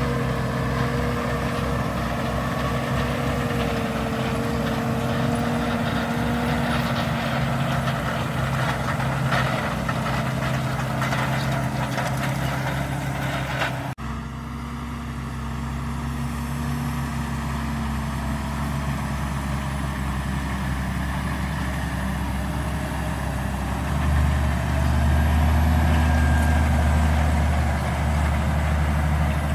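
Valtra Q Series tractor's diesel engine running steadily while pulling a Lemken five-furrow plough. The sound breaks off abruptly about halfway and resumes, and the engine grows louder and deeper a few seconds before the end.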